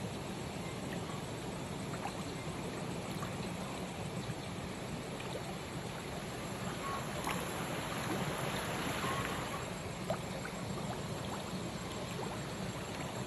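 Steady rushing of flowing water, with a few faint ticks and small splashes from the water surface.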